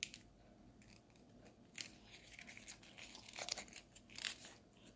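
Faint crinkling and rustling of a folded sheet of origami paper as fingers pinch and crease the small model, with a few short scratchy crinkles about two, three and a half, and four seconds in.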